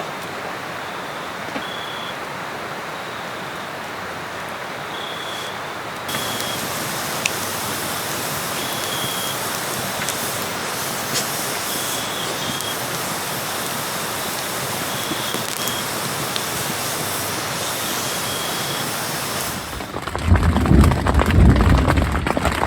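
Steady rush of running water, with short high chirps repeating every second or two over it. Loud low buffeting comes in near the end.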